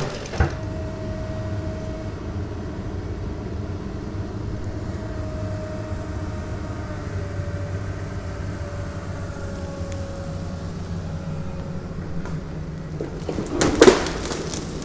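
Heavy tree-removal machinery running steadily, a low engine drone with a faint wavering whine over it. Near the end comes a cluster of loud knocks and clunks.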